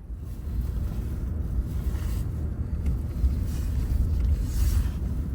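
Pickup truck climbing a snowy road on chained tires, its engine under load: an uneven low rumble.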